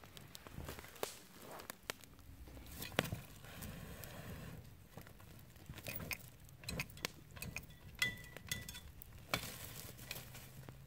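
Small wood campfire crackling and hissing, with irregular sharp pops and clicks as burning sticks and embers are scraped and pushed about with a folding shovel.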